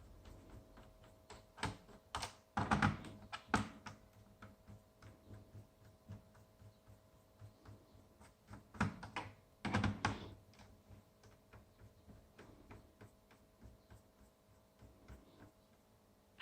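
Typing on a laptop keyboard: two quick flurries of keystrokes, about two to four seconds in and again around nine to ten seconds in, with scattered single key taps between.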